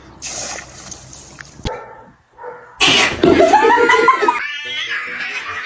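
A dog vocalising: after a quieter start, loud drawn-out calls about three seconds in that rise and fall in pitch, ending in a quick rattling run.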